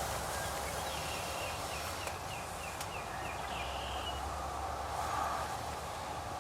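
A run of about eight quick, high turkey yelps, roughly three a second, lasting a few seconds.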